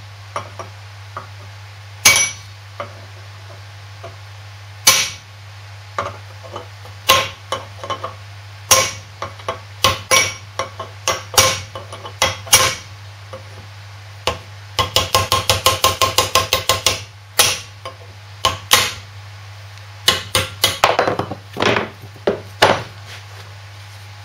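Hammer blows on a cold chisel against the hardened steel sleeve of a Lister D crank pin, which has been ground most of the way through so it can be split off. Single ringing metal strikes come a second or two apart, with a quick run of light taps at about eight a second in the middle and a cluster of blows near the end, over a steady low hum.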